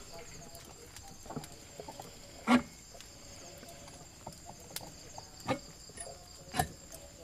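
Insects chirring steadily and high-pitched, with scattered small clicks and a few sharp knocks. The loudest knock comes about two and a half seconds in, with two more near the end.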